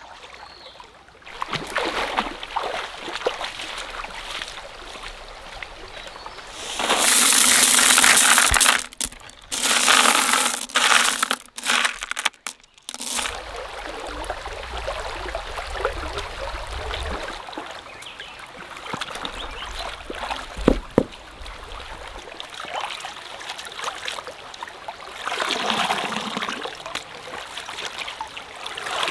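Stream water trickling and sloshing, with two loud surges of splashing about seven and ten seconds in.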